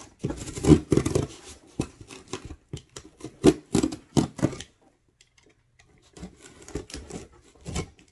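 A cardboard shipping box being opened and handled: a quick run of sharp clicks, scrapes and rustles of cardboard and packaging, a pause of about a second and a half just past the middle, then more rustling.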